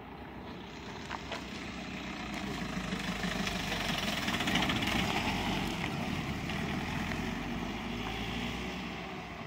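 Toyota Hilux pickup truck driving past close by, its engine and tyre noise rising to a peak about halfway through and then fading away.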